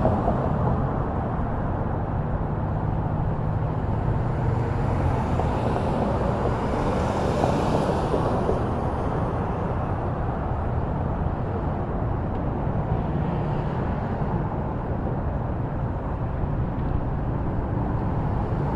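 Steady road traffic noise, with a brief swell about seven seconds in.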